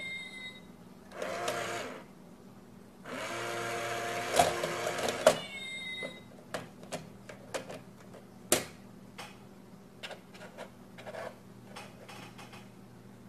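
Motorised cat coin bank toy whirring in two spells, a short one about a second in and a longer, louder one of about two seconds, as its lid mechanism works. Brief high chirping tones come near the start and again just after the second spell. After that there is a string of light clicks and taps, with one sharper knock past the middle, as a cat paws at the box.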